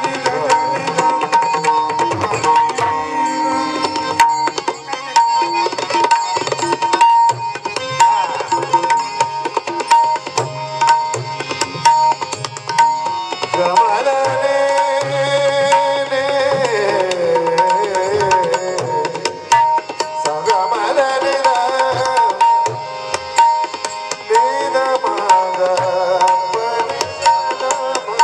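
Marathi bhajan music: a hand drum plays a dense, fast run of strokes under a melodic line that bends up and down in pitch, strongest from about halfway through.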